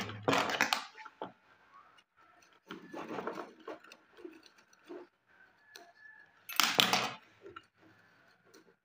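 Handling noise of a room-heater element being refitted: the coiled element wire and ceramic end cap scraping and clinking against the heater rod, in three short bursts with small ticks between.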